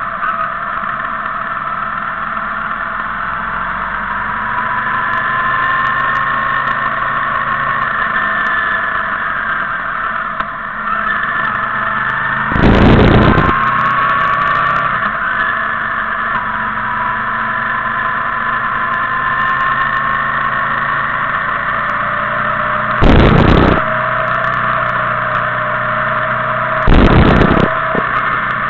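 Motorcycle engines running on the move, a steady engine note that slowly rises and falls in pitch with the throttle. Three loud bursts of noise cut across it, one about halfway through and two near the end.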